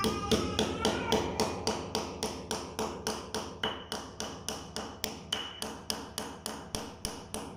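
Steady run of light knocks, about three a second, as a PVC wall panel is struck along its edge through a wooden block, seating its tongue into the neighbouring panel's groove.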